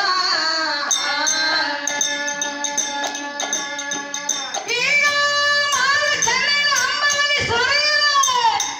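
Gee gee pada folk singing: long held, bending sung notes over small hand cymbals (tala) clinking in time.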